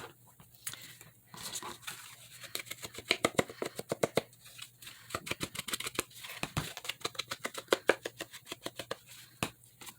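Quick repeated scrubbing strokes of an inking tool on the edges of a paper page, several strokes a second, starting about a second and a half in.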